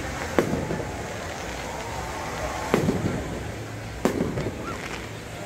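Fireworks going off outdoors: three sharp bangs at irregular intervals, each trailing off in a short echo, over a steady low background rumble.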